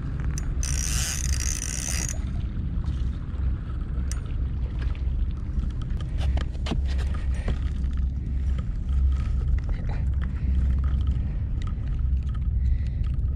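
Steady low wind rumble on the microphone, with scattered small clicks and a short hiss burst about half a second in.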